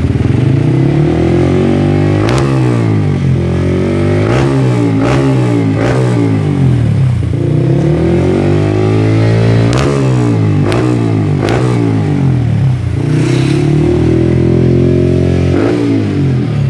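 Yamaha R15 V3's single-cylinder engine breathing through an aftermarket stainless-steel twin-outlet racing muffler in the CBR250RR standard-racing style, revved by hand at a standstill. Repeated quick throttle blips rise and fall, with a longer hold at higher revs near the end before it drops back and blips once more.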